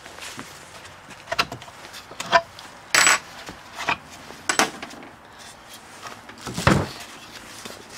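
Wooden sand-casting flask and frame pieces being handled and set down on a wooden board: a handful of separate wooden knocks and clacks, with a heavier thump near the end.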